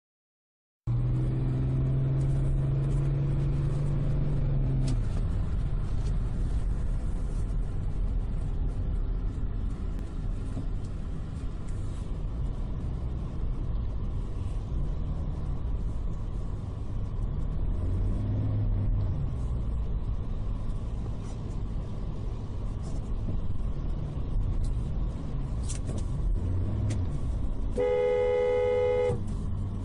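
Street traffic with vehicle engines running and road noise throughout; near the end a vehicle horn sounds one steady blast lasting about a second.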